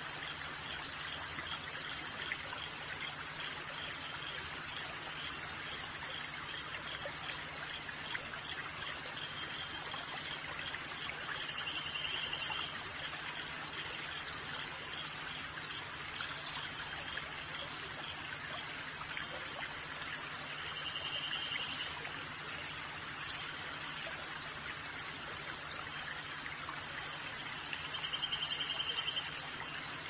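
A stream trickling steadily, with a short high trill heard three times.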